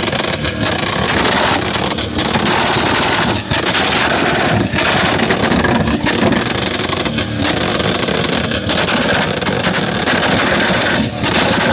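Loud car engine and exhaust noise with short dips every second or so.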